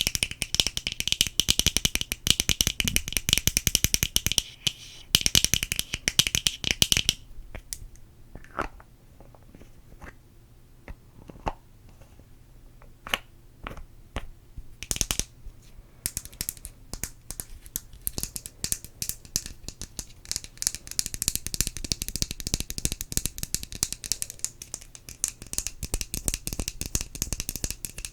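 Close-miked ASMR mouth sounds: fast, dense clicking and crackling that thins to scattered single clicks for several seconds in the middle, then picks up again.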